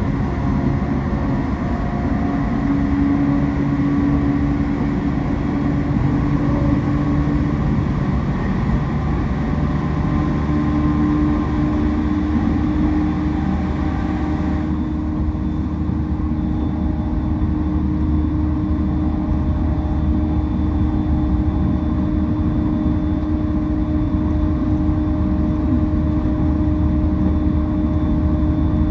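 Electric commuter train running at speed through a tunnel, heard from inside the carriage: a steady rumble of wheels on rail with a steady traction motor whine. About halfway through the upper hiss drops away while the rumble and whine carry on.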